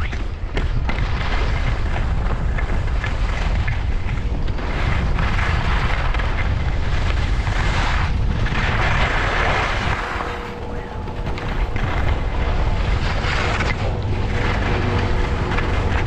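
Skiing at speed: wind buffeting the action camera's microphone as a steady heavy rumble, with skis hissing and scraping over snow, the hiss strongest about halfway through.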